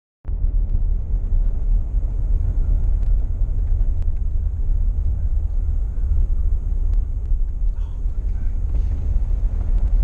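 Vehicle driving on a dirt road, heard from inside the cab: a steady low road and engine rumble, with a few faint sharp clicks.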